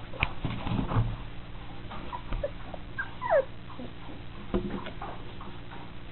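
Three-week-old Austrian Pinscher puppies: one gives a short falling whine about three seconds in, among a few faint squeaks, with several knocks from the puppies moving about the wooden whelping box.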